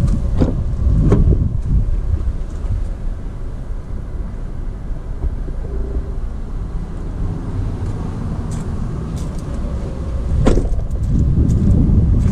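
Wind buffeting the microphone as a steady low rumble, with a few brief knocks from the camera being handled near the start and about ten seconds in.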